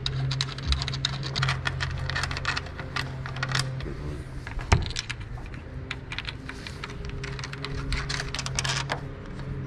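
Quick runs of small clicks and rattles from hands working a hood gas strut and its hinge in a car's engine bay, with one sharp knock about halfway through. A steady low hum runs underneath.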